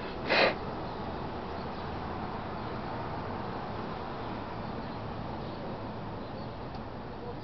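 Steady low background hiss, with one short noisy burst about half a second in.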